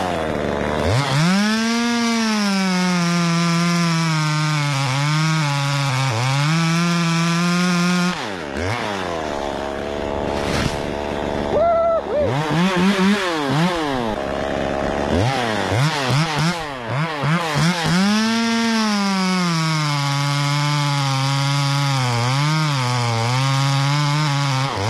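Chainsaw revving to full throttle and held there, its pitch sagging slightly and dipping a few times as it cuts into the trunk. About eight seconds in it falls back toward idle and is blipped several times, then it revs up again for a second long cut.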